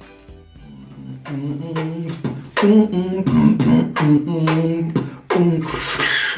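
Intro music: a rhythmic vocal track with a beat.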